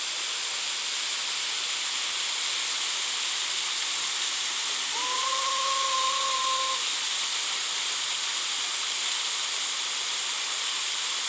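Waterfall rushing steadily, a constant hiss of falling water. About five seconds in, a single held tone sounds for about two seconds over it.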